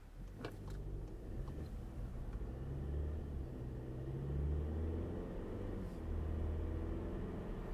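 Inside the cabin of a Skoda Octavia 3 with the 1.8 TSI turbocharged four-cylinder petrol engine and automatic gearbox, as the car pulls away and accelerates. The sound is a low engine and road rumble that grows louder over the first few seconds, then holds steady.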